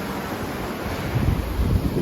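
Rushing creek water, a steady wash, with wind buffeting the microphone in gusts that swell about a second in.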